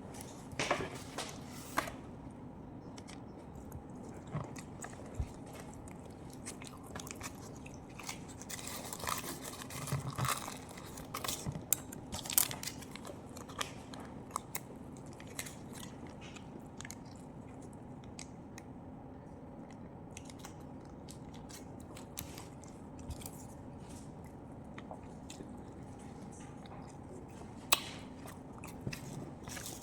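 A person eating close to the microphone: biting and chewing food with crunching, in scattered bursts of sharp clicks over a steady low hum.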